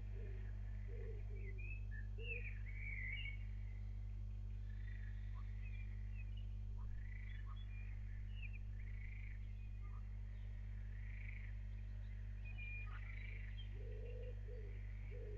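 A chorus of short, repeated chirping animal calls, some high and some lower, over a steady low hum.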